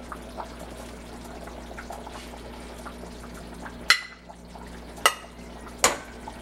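A metal serving spoon scooping and scraping cooked rice onto a plate, with three sharp clinks of the spoon against the pot and plate in the second half. A steady low hum runs underneath.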